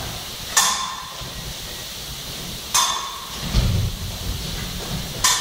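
Steel fencing blades clashing three times, each a sharp clink with a short ring, with thuds of footwork on the piste about three and a half seconds in.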